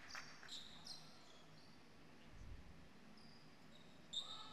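Faint, scattered squeaks of basketball shoes on a hardwood court: several short, high squeaks, the sharpest near the end, over quiet hall tone.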